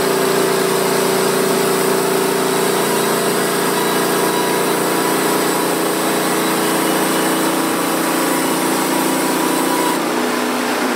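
Engine of a Norwood portable bandsaw mill running steadily, its note shifting slightly about ten seconds in.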